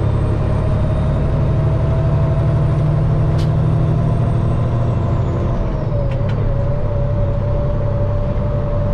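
A Peterbilt semi truck's diesel engine, heard from inside the cab, runs steadily as the truck rolls in traffic. The engine note drops slightly about five and a half seconds in.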